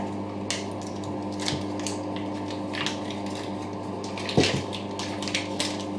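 Paper butter wrapper crinkling and rustling as a block of butter is handled on a kitchen counter, with a single knock about four seconds in, over a steady low hum.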